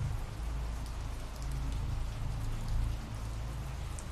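Steady rain from an ambient rain recording, with scattered individual drops ticking and a low rumble underneath.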